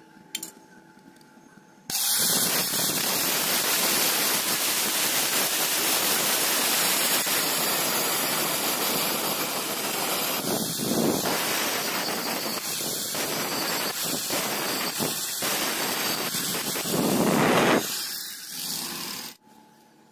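Angle grinder with a grinding disc working against steel at the tack welds of a square tube: a harsh, steady grinding noise that starts about two seconds in, surges louder near the end and stops shortly before the end.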